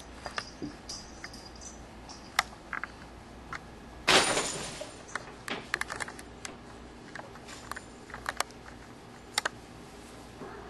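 Paper bag crinkling and rustling in scattered sharp clicks and crackles as a cat pushes into and moves inside it, with one louder crackling rustle about four seconds in.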